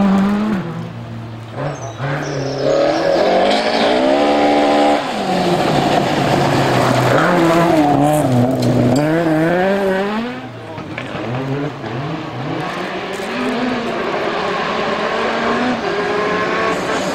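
Rally car engine revving hard, its pitch climbing and dropping again and again through gear changes and lifts off the throttle.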